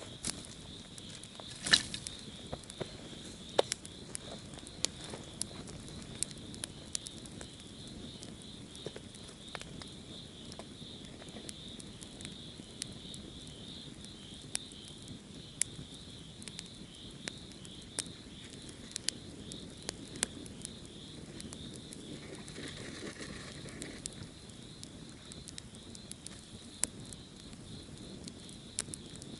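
Campfire crackling, with irregular sharp pops throughout and one louder pop about two seconds in, over a steady high-pitched hum.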